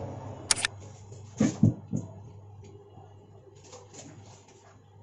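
A short, sharp click sound effect about half a second in, then three dull knocks a little over a second later from hands handling a steel tray of samosa filling, over a steady low hum.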